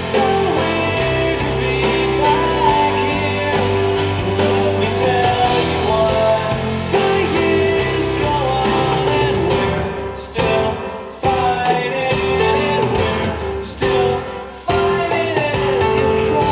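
Music: a man singing a slow pop ballad with guitar accompaniment, the music dipping briefly a few times about ten to fifteen seconds in.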